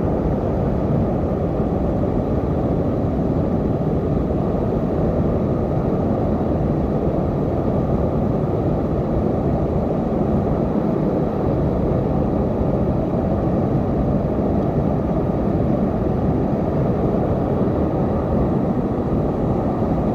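Whitewater rapids rushing: a loud, steady, unbroken rush of river water, deepest in the low range.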